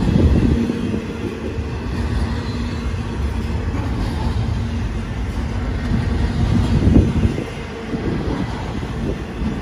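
Cars of an intermodal freight train rolling past at speed: a steady low rumble and rattle of steel wheels on the rails, with one louder knock about seven seconds in.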